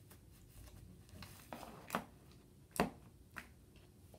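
Thick slime being worked by hand, giving a few short sticky clicks and squishes, the loudest nearly three seconds in.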